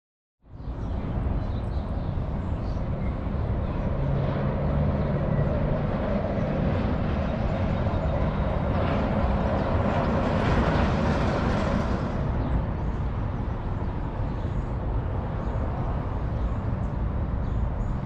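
Outdoor street ambience on an action camera: steady wind rumble on the microphone with traffic noise. A brighter hiss swells midway and then fades.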